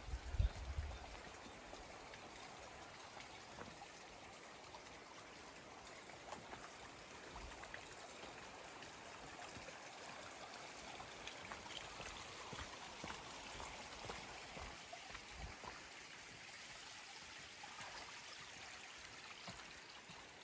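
Water running and trickling along a small irrigation channel, a faint steady rush, with a couple of low thumps about half a second in.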